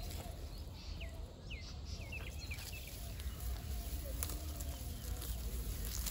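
Open-field ambience: a bird giving a quick series of short, falling chirps about one to two and a half seconds in, over a steady low rumble, with a few faint rustles and ticks of dry lentil plants being pulled by hand.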